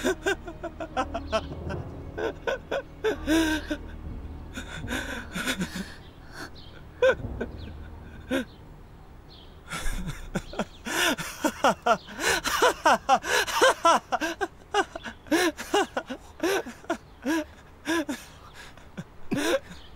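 People's voices, gasps and short agitated exclamations, overlapping and coming thick and fast in the second half, over a low hum in the first half.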